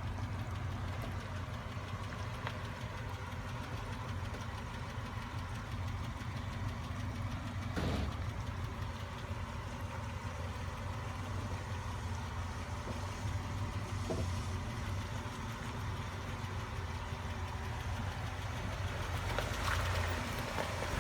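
Off-road vehicle engine running steadily at low revs, with a brief knock about eight seconds in.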